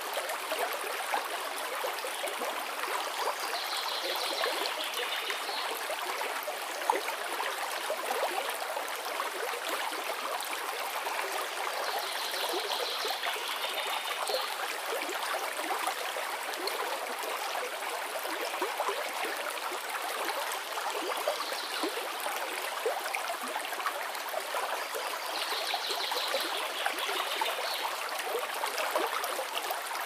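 Shallow woodland stream running steadily over stones and leaf litter, a continuous babble and trickle of water.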